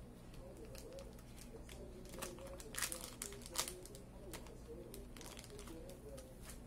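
Crinkling of a plastic Snickers wrapper being handled, with a cluster of sharp crackles in the middle.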